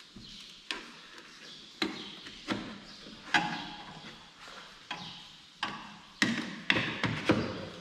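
Flathead screwdrivers prying and tapping at the brittle plastic clips of a Jeep Liberty's front grille: a run of about ten irregular sharp clicks and knocks, coming closer together near the end.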